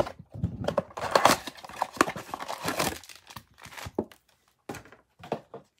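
Plastic shrink-wrap being torn and crinkled off a Panini Prizm trading-card blaster box, busiest in the first three seconds, then sparser rustles and light taps as the foil packs come out of the box.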